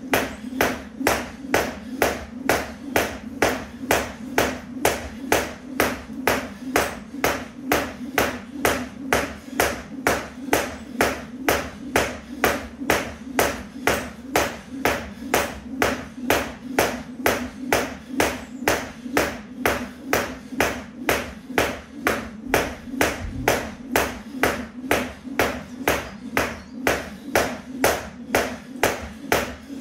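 Jump rope skipping: the rope slaps the floor mat and the feet land in a steady, even rhythm of about two sharp slaps a second.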